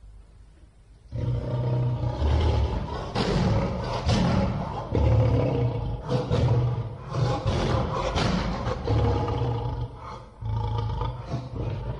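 Lion roars from a production-logo sound effect, coming in about a second in and going on in several long surges.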